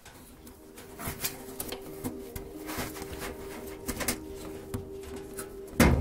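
Small clicks and rubbing from a dryer drive belt being worked by hand onto the motor pulley inside the cabinet, over a steady low hum, with one loud knock just before the end.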